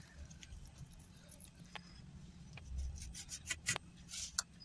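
A knife cutting through a set slab of crumbly coconut barfi on a steel plate: faint scraping, with a few sharp clicks of the blade against the metal, most of them in the second half.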